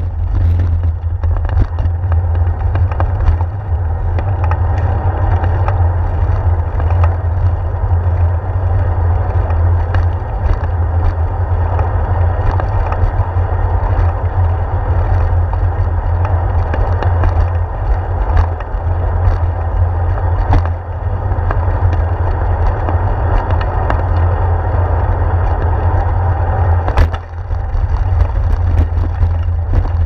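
Steady low rumble of wind buffeting a handlebar-mounted GoPro while bicycle tyres roll over brick pavers and asphalt, with scattered rattling clicks from bumps and a sharper knock near the end.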